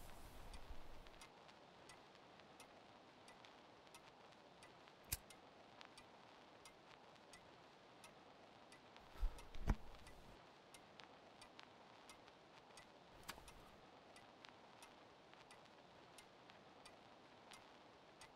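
A clock ticking steadily in a quiet room, about three ticks every two seconds. A sharper click comes about five seconds in, and two soft thumps are heard about halfway through.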